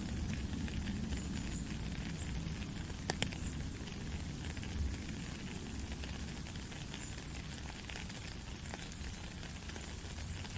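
Steady rain falling in a forest: an even hiss with a dense patter of drops, and a couple of sharper drip ticks about three seconds in.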